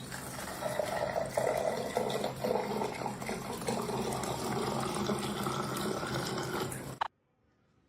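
Water running steadily, as from a tap, then cutting off suddenly about seven seconds in.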